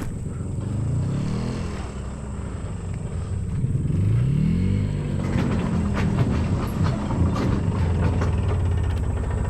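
A farm vehicle's engine speeds up and slows down twice, then runs steadily, with some rattling.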